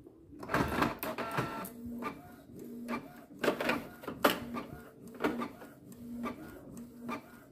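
Canon Pixma G3415 ink-tank inkjet printer printing a test page. Paper-feed clatter and clicks start about half a second in. The print head then makes repeated short passes, each with a brief motor hum, about every two-thirds of a second, mixed with sharp clicks.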